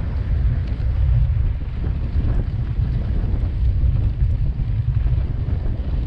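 Wind buffeting the microphone of a camera riding on a moving bicycle: a steady, fluttering low rumble.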